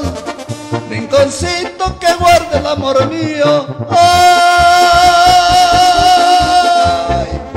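Mexican ranchera-style music with a steady bass beat and a melody that moves quickly up and down, then, about four seconds in, one long high note held with a slight vibrato until near the end.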